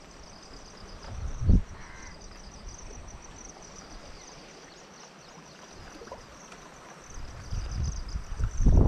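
Insects chirping in a steady, pulsing high trill over the rush of flowing floodwater. A single dull thump comes about a second and a half in, and rough low rumbling builds near the end.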